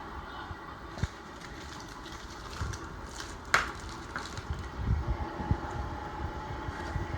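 A cardboard box and its packaging being opened and handled: scattered knocks and rustles, a sharp snap about three and a half seconds in, and a run of low thumps in the second half, over a steady fan-like hum.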